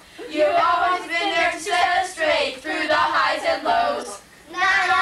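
A small group of children and women singing a song together, with a short break between lines about four seconds in.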